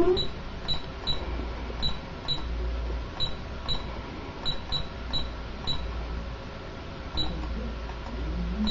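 Alarm-system keypad beeping after a garage fire zone has been triggered: about a dozen short, high-pitched beeps at uneven intervals, over a low hum.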